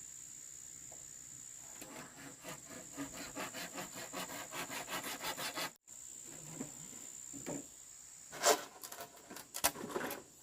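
Rhythmic rasping strokes on wood, about four a second, over a steady high insect buzz. The strokes stop abruptly about halfway through, and a few louder knocks follow near the end.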